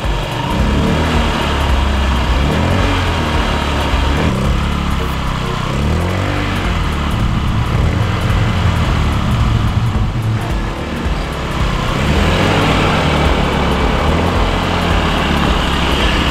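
Small motorbike engine running, rising and falling in pitch as it is revved and ridden off, with background music.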